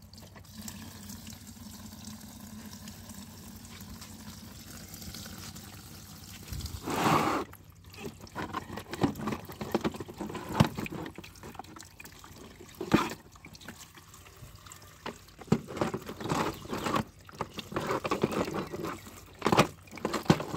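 Water splashing and dripping as muddy plastic toy vehicles are lifted and rubbed in a tub of water, with irregular knocks of plastic. There is one louder splash of water about seven seconds in.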